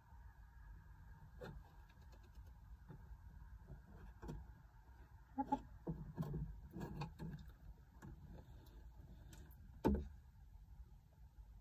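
Chickens settling on a roost: scattered quiet taps and shuffles, a cluster of soft sounds around the middle, and one sharper knock about ten seconds in, over a low steady hum.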